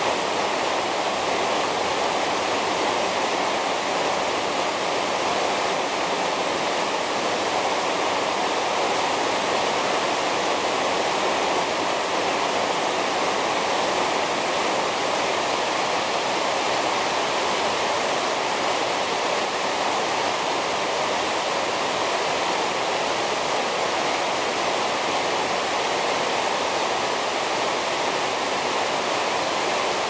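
Jion Falls waterfall: water falling and crashing into whitewater, a steady, even rush that does not change.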